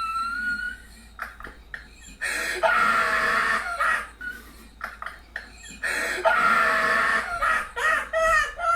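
Shrill, drawn-out cries, several in a row, the longest held about a second and a half each.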